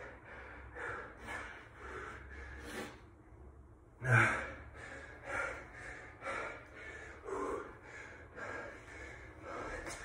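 A man panting hard from exertion midway through a set of donkey kicks, about two breaths a second, with one loud gasp after a brief pause about four seconds in.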